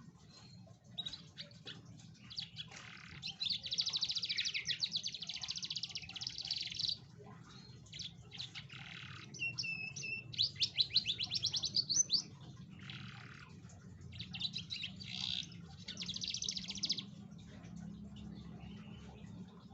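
Domestic canary singing in three bouts of rapid, high trilled phrases, over a faint steady low hum.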